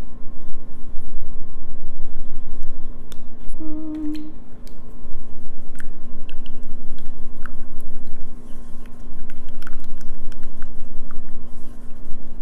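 Paintbrush scrubbing paint onto a stage backdrop in long, uneven strokes, with small scratches and clicks, over a steady low hum. A short hummed note comes about four seconds in.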